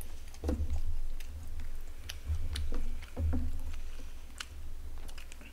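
Close-miked chewing of barbecued pork, in irregular low thumps with small clicks of chopsticks on food and takeout containers.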